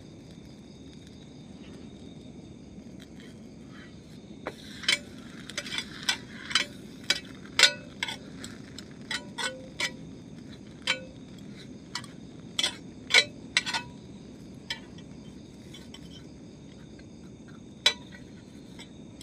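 A metal utensil clinking and scraping against a small frying pan on a camp stove as bread is toasted, a quick run of sharp clinks from about five to fifteen seconds in and one more near the end. Crickets chirp steadily in the background.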